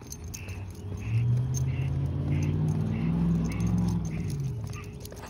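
A car passing, its engine hum swelling about a second in, holding, then fading away near the end. Behind it runs a light, regular ticking about twice a second.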